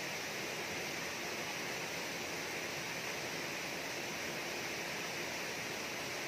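Steady rush of river water pouring over a low concrete dam, an even hiss.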